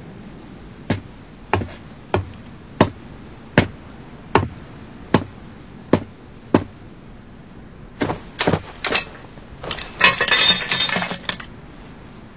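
Slow, evenly paced footsteps on a hard floor, about nine steps, followed near the end by a flurry of clinking and crunching, like debris being disturbed.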